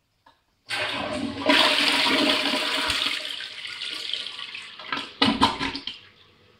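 Sterling Windham toilet flushing: a sudden rush of water about a second in, loudest for the next couple of seconds as the bowl swirls, then tapering off. A few sharp louder gulps come near the end as the bowl empties, and the sound fades to a faint hiss.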